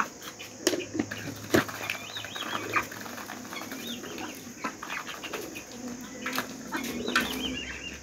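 Ducks feeding on pearl millet from a steel plate: irregular clicks and taps of bills striking the metal plate and dabbling through the grain, with a few faint high chirps now and then.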